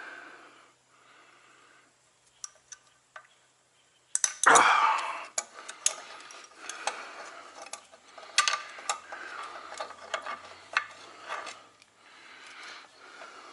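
Small metal clinks, ticks and scraping of tools and a brake-shoe return spring being worked into place on a truck's drum brake, with a louder clatter about a third of the way in.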